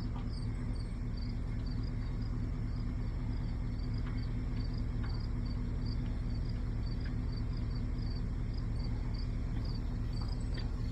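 A vehicle engine idles steadily with a low, even hum. Over it, an insect gives short, high chirps about twice a second.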